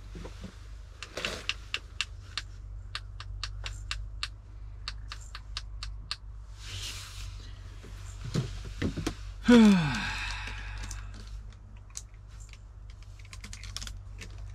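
Quick, irregular clicks and taps of small fishing tackle being handled, with a louder short sound falling in pitch about nine and a half seconds in. A steady low hum runs underneath.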